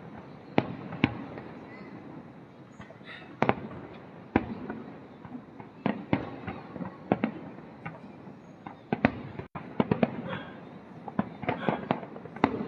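Fireworks bursting overhead: a string of sharp bangs at uneven intervals over a steady rumble of background noise, coming thicker and faster in the last few seconds.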